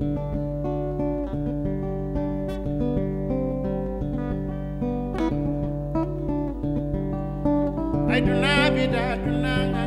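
Acoustic guitar playing a steady picked and strummed accompaniment. About eight seconds in, a singing voice comes in with a wavering, ornamented melody over the guitar.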